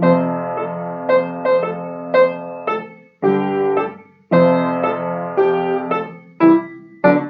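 Piano playing a song introduction: struck chords with melody notes above them, in short phrases with brief gaps around 3 and 4 seconds in.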